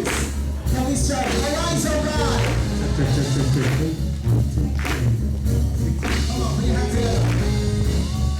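Live gospel praise band and singers performing a worship song: voices singing over drums, bass guitar and keyboard.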